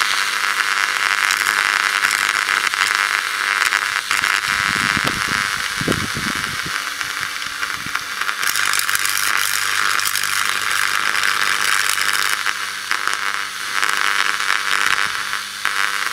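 High-voltage arc from a microwave-oven transformer crackling and sizzling through wet iron sand and soil in a ceramic mug as the moisture boils off, over the transformer's low hum. A few deeper sputters come about five seconds in.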